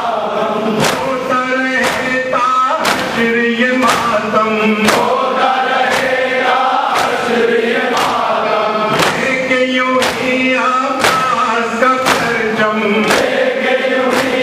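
A noha (Shia lament) sung by a man through a microphone, with a large crowd chanting the refrain. Under the voices, the mourners' hands beat their chests in unison about once a second (matam).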